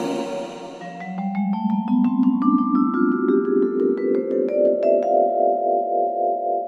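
Outro music of quick struck mallet-percussion notes, about four a second, climbing in pitch over a sustained chord that rises step by step. The chord holds steady from about five seconds in.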